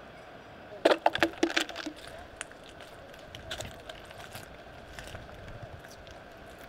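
A quick run of sharp clinks with a brief ring, about a second in, like discarded glass bottles and cans knocking together on paving, followed by scattered lighter clicks and rattles.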